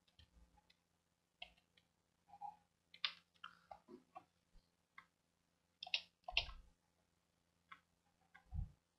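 Faint computer mouse clicks and keyboard taps at irregular intervals, with two dull knocks on the desk, one past the middle and one near the end.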